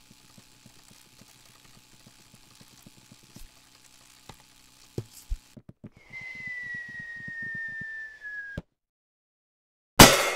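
Homemade cartoon foley: light, quick tapping footsteps with two heavier thumps about five seconds in. Then a single whistled note is held for a couple of seconds, sliding slowly down over fast pattering steps. A sudden loud clatter breaks in just before the end.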